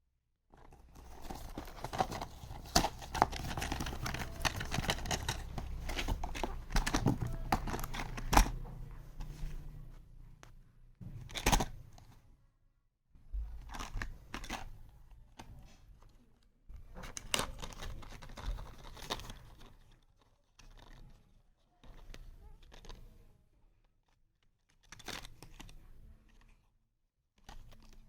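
Packaging being torn open and crinkled by hand, with sharp clicks among the rustling. A dense stretch of tearing and crumpling for about the first ten seconds gives way to shorter separate bursts of rustling and handling.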